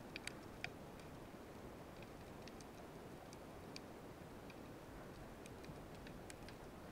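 Quiet underwater ambience picked up by a submerged camera: a low steady rush with scattered sharp clicks, three of them close together within the first second.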